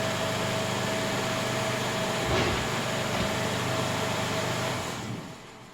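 Huron MU 5 milling machine's spindle motor and drive running forward with a steady hum and a fixed tone, then switched off about five seconds in and dying away.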